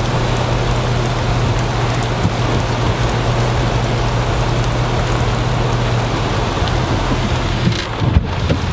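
Heavy rain pouring down in a steady dense hiss, with a steady low hum underneath. Near the end the rain sound briefly drops and thins.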